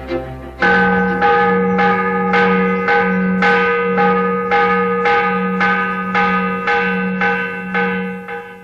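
A single church bell tolling, struck about twice a second with the same ringing note each time, starting about half a second in and fading near the end.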